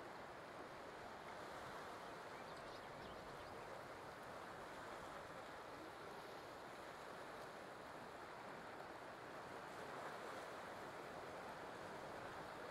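Faint, steady wash of surf on a beach, an even hiss with no distinct waves breaking.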